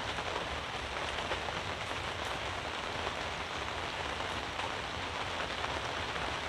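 Steady rain falling on a fabric pop-up canopy overhead: an even hiss with a few faint drop ticks.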